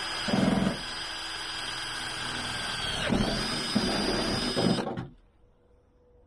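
Power drill boring through the inner metal roof of a high-top Ford Transit van. The motor whines steadily with a few louder, rougher bursts. The whine dips briefly about three seconds in, picks up again, and stops about five seconds in.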